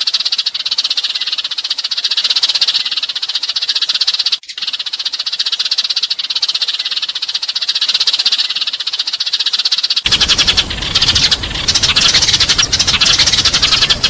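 A dense chorus of many sparrows chirping rapidly: a recorded flock call used to lure sparrows. It breaks off briefly about four seconds in, and about ten seconds in gives way to a noisier recording with more separate chirps.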